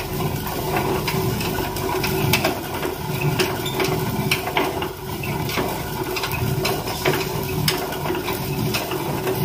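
Hand-turned stone quern (chakki) grinding whole pulses into split dal: the upper millstone, pushed round by its wooden peg handle, rasps and rumbles over the lower stone, swelling about once a second with each turn, with scattered sharp clicks.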